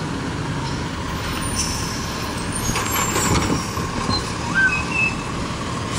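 Automated side-loader garbage truck running as it pulls up and stops beside a curbside trash cart, with a short hiss of its air brakes.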